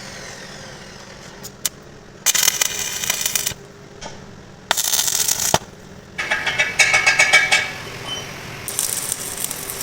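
A power tool run in four short bursts of rapid rattling, each about a second long.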